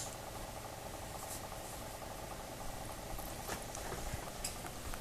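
Quiet room tone with a steady faint hum and a few faint clicks or taps in the second half.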